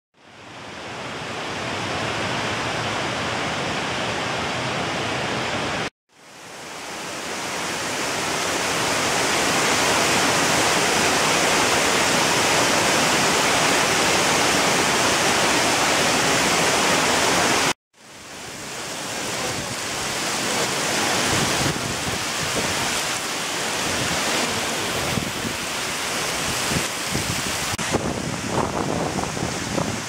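Tall waterfall rushing steadily, a dense, even roar of falling water. Twice the sound cuts out for a moment and fades back in, and it grows less even near the end.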